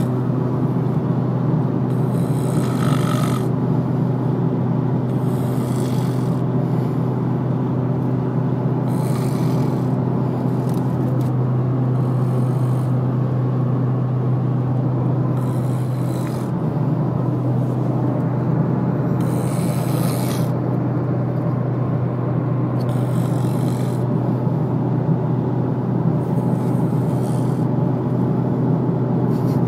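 A sleeping man snoring, with a noisy breath every three to four seconds over a steady low hum.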